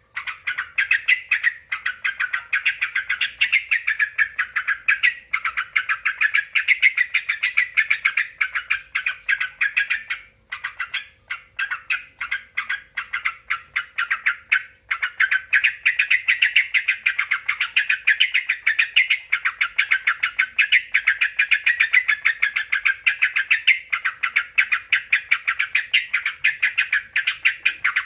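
Yellow-vented bulbul (trucuk) chattering in a fast, continuous run of short notes, a lure call meant to set a caged trucuk singing, with brief pauses about ten and fifteen seconds in.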